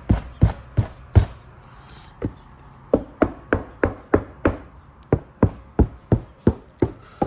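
Repeated knocking on a car's trunk panel, about three sharp knocks a second. A break of about a second and a half near the start holds one weaker knock.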